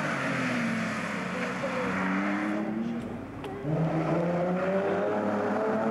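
Two historic rally cars at speed on a tarmac stage. A red classic Porsche's engine runs and fades away. About three and a half seconds in, an Austin-Healey arrives, its engine rising in pitch as it accelerates.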